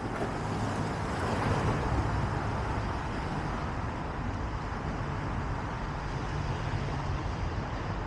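Downtown street traffic: a steady rumble of road vehicles, swelling a little about a second or two in.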